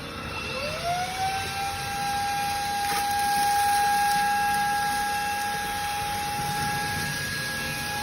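TASVAC 260 W cordless stick vacuum switched on and running: its motor whine rises in pitch during the first second or so as it spins up, then holds steady over a rush of air.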